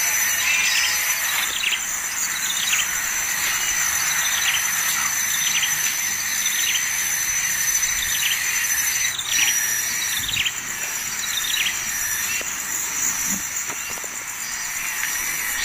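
A steady high insect trill, cricket-like, runs under short falling bird chirps that repeat about once a second.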